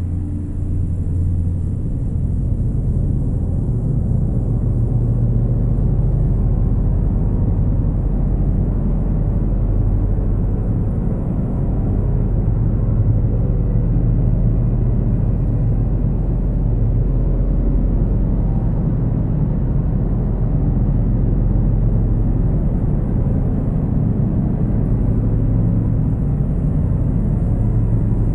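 Dark ambient drone music from guitar, synths and electronics: a dense, steady low drone that stays level, with little above the low register.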